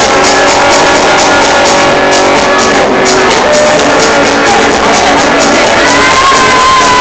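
Band playing loud rock music with a steady, driving beat. About six seconds in, a high held note comes in and bends in pitch.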